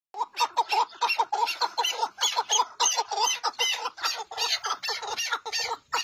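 Caged chukar partridge calling: a fast run of short clucking notes, about four to five a second, going on without a break.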